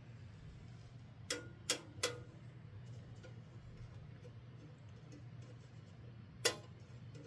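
Sharp clicks and taps of a computer case being handled: three in quick succession about a second in, one more near the end, over a low steady hum.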